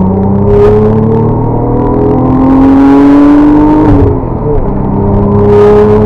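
Audi RS4's 2.7-litre twin-turbo V6 under hard acceleration, heard from inside the cabin. Its pitch climbs steadily for about four seconds, drops sharply at an upshift, then starts climbing again in the next gear.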